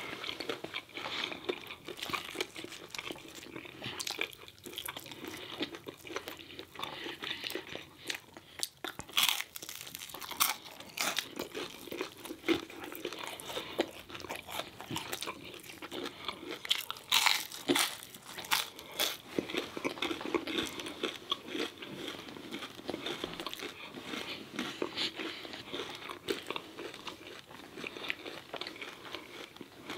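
Chewing and biting into crispy fried food, battered chicken, fish and fries, with wet chewing and a steady run of sharp crunches. A few louder crunches stand out about a third of the way in and again just past halfway.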